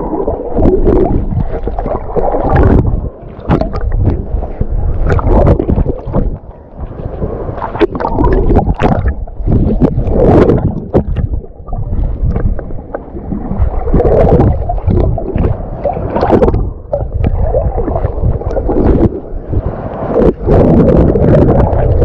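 Strong wind buffeting the microphone over choppy sea water sloshing and gurgling in the waves, the noise swelling and dropping every second or two.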